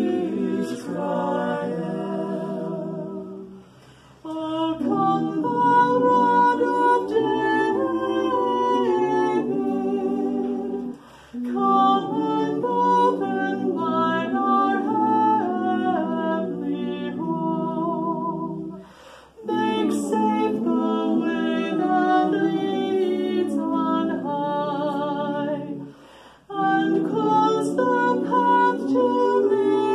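Small mixed-voice ensemble of soprano, altos, tenor and bass singing a cappella in close harmony. The phrases break off briefly about every seven seconds for breath.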